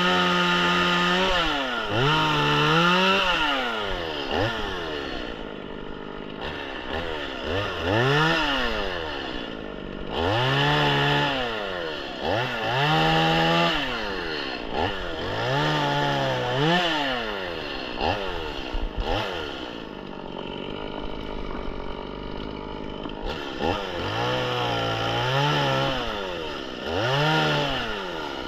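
Stihl MS 180 two-stroke chainsaw revved up and let back down again and again, its pitch rising and falling every second or two.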